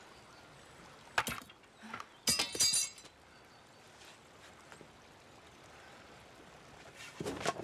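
Sharp metallic clinks of swords and spears being handled, one about a second in and a ringing clash around two and a half seconds in, with another knock near the end, over a quiet background.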